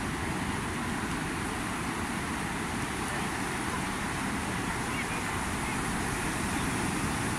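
Steady wash of ocean surf breaking on the beach, with wind rumbling on the microphone.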